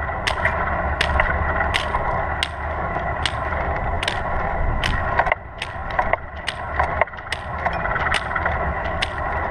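Hiking pole tips striking asphalt in sharp clicks, roughly one or two a second, over the steady rolling rumble of a manual wheelchair's wheels on the pavement, heard from a camera fixed to the chair.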